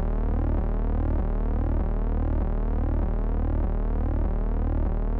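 Electronic synthesized tones: a steady low hum under a stack of tones that glide in repeating sweeps several times a second, like an ambient music intro.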